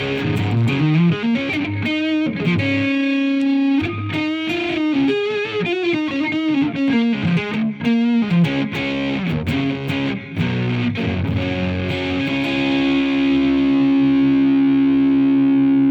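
1978 Gibson Les Paul Special '55 Reissue electric guitar played through an amp with some distortion: a run of quick single-note lead lines bending up and down, ending about three-quarters of the way through on one chord left ringing and sustaining.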